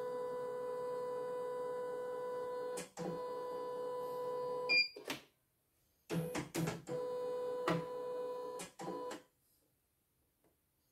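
E900 computerized embroidery machine humming steadily, with a few clicks. A short beep comes about five seconds in and the hum cuts off. The hum returns about a second later for three seconds, then stops.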